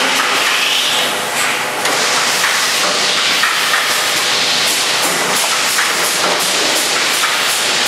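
Shot-glass filling line running: filled, lidded shot cups clatter against each other and the guide rail as the rotating accumulation table carries them round, a stream of quick small knocks over a steady machine hiss.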